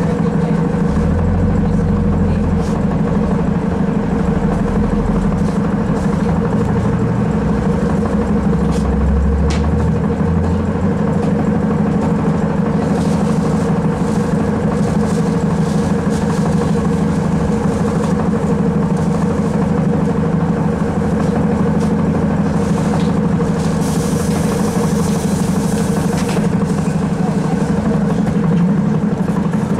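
ZiU-682 trolleybus heard from on board during a ride: a steady hum from the vehicle over running noise. About three-quarters of the way through there is a short hiss.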